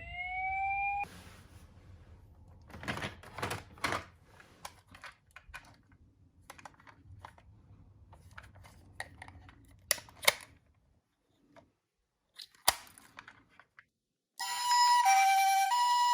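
A toy emergency-vehicle siren wails and cuts off about a second in. Scattered clicks and clacks of plastic toy cars being handled follow, with short silent gaps. Near the end a two-tone hi-lo ambulance siren from a toy car starts and alternates steadily.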